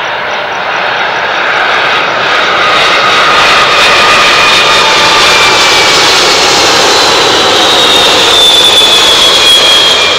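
British Airways Boeing 747-400 passing low overhead on final approach, its four Rolls-Royce RB211 turbofans growing loud over the first few seconds and then staying loud. The engines' whine falls in pitch as it goes by.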